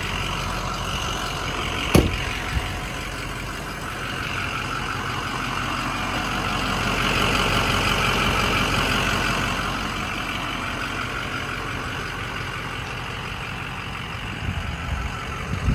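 Ford 6.0 L Power Stroke V8 turbodiesel idling steadily, getting louder for a few seconds in the middle. A single sharp knock about two seconds in.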